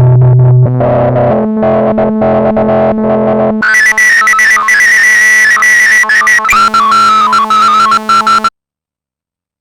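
Arturia MiniBrute 2 analog synthesizer playing held notes that step between pitches. About three and a half seconds in the sound turns much brighter with a high tone on top, then it cuts off suddenly near the end.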